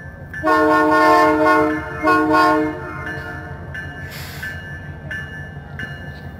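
Diesel locomotive of the CP Holiday Train sounding its multi-note horn: one long blast, then a shorter one. A bell dings steadily about every two thirds of a second over the low rumble of the approaching train.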